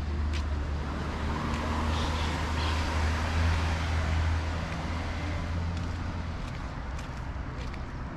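Road traffic: a motor vehicle running close by, with a steady low engine hum that drops away about six seconds in, over road noise that swells to its loudest around the middle.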